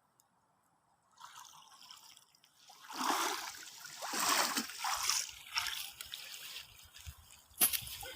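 Water splashing and trickling, starting about a second in and strongest for a couple of seconds in the middle, with a sharp knock near the end.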